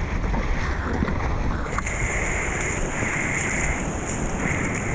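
Whitewater rushing under a surfboard, heard through a board-mounted action camera's microphone with wind buffeting it.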